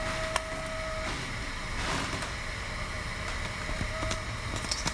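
Robo R2 3D printer idling with a steady hum. A faint whine cuts out about a second in and comes back near the end, and there are a few light clicks.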